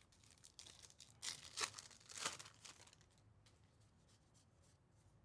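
A 2024 Topps Big League baseball card pack being torn open, its wrapper ripping and crinkling in a few faint rustles over the first three seconds.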